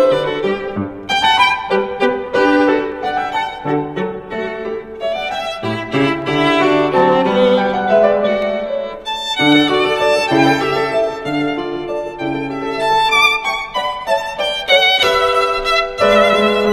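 Background music led by a violin, playing a melody over accompaniment.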